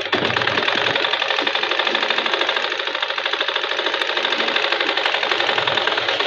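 Domestic sewing machine stitching at a steady run, its needle and feed going in a rapid, even rhythm of ticks as a seam is sewn along the edge of a blouse's hook strip.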